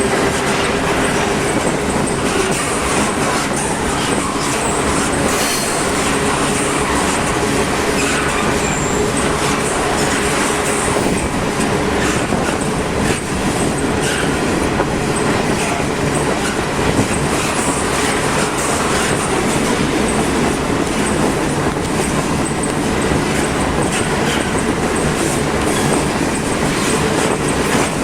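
Freight train cars rolling past, a loud, steady rumble and clatter of steel wheels on the rails.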